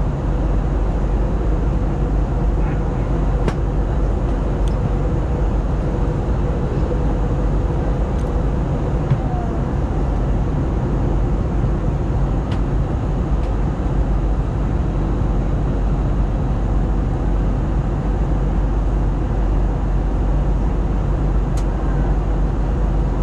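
Steady cabin noise of an Airbus A321LR in flight: an even rush of airflow and engine drone, with a faint steady hum in the first half and a few light clicks.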